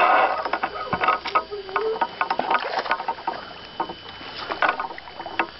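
Irregular knocks, clicks and rustling of gear being handled in a small boat while a hooked bass is being netted.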